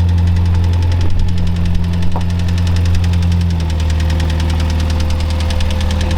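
Ford Falcon XB's engine running steadily under way, heard from inside the car; its low hum drops a step in pitch about three and a half seconds in.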